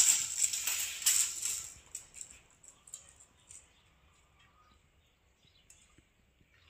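Steel tape measure blade being pulled out of its case, a rattling, clicking run for about two seconds that then stops, leaving only a few faint ticks.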